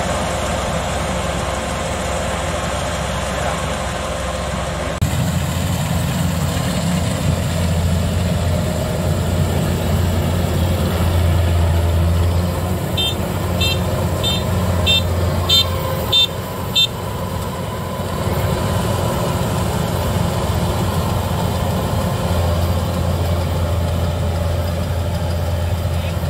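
Kubota DC93 combine harvester's diesel engine and threshing machinery running steadily under load while cutting rice, a deep even drone. Partway through, a row of about seven short high electronic beeps, about one every half second.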